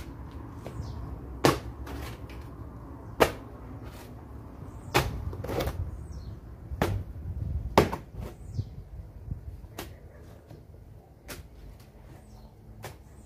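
A metal spade stabbing into and scraping through loose soil as earth is dug out and tossed aside, with about ten sharp strikes of the blade, one every second or two.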